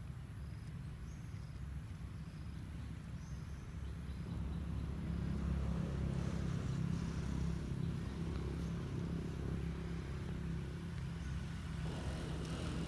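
Low, steady rumble of an engine running, growing louder about five seconds in and easing off a little after about ten seconds.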